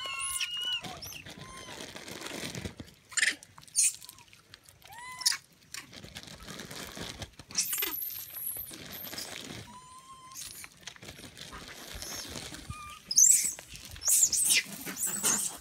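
Macaques squealing and screeching as they scramble over scattered peanuts. Short squeaky calls run throughout, with sharp, high-pitched shrieks a few seconds in and a cluster of louder shrieks near the end.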